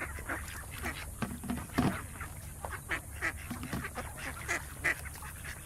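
A flock of ducks calling: many short calls, irregular and overlapping, over a steady low hum.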